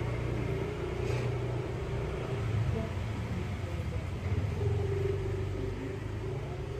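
Steady low rumble with a faint hum over it, machine-like, with no sudden sounds.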